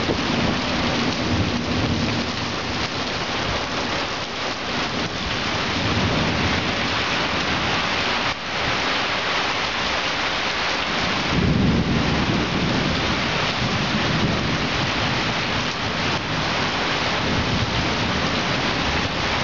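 Heavy rain pouring down steadily in a thunderstorm, with a low rumble of thunder rolling in a little past halfway.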